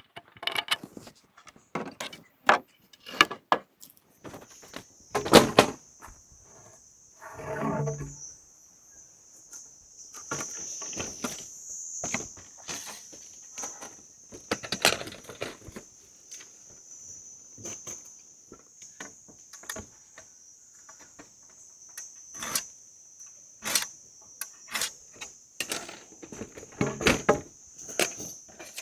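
Scattered sharp knocks and clatter from hands-on work on wood, loudest about five seconds in. From about four seconds in, a steady high-pitched insect drone runs underneath.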